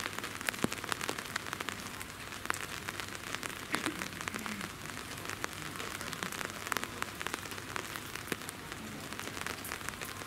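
Rain pattering steadily: a constant hiss sprinkled with many small, irregular drop ticks.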